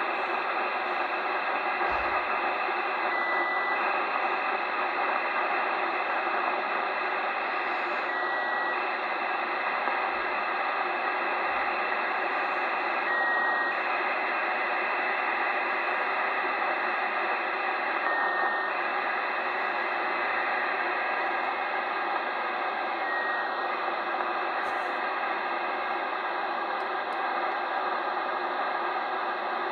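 FUNcube-1 satellite's BPSK telemetry downlink on 145.935 MHz heard through a Kenwood 2 m all-mode transceiver in USB mode: a steady rushing data signal with a brief tone about every five seconds. The tone sits a little lower each time as the Doppler shift of the passing satellite drifts.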